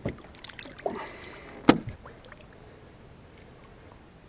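A small muskellunge being let go into the lake by hand: a few soft knocks and water sounds, then one sharp splash just under two seconds in as it goes into the water.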